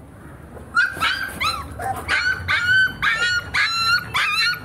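A dog whining in a quick series of short, high-pitched whines and yips, about ten of them, starting about a second in.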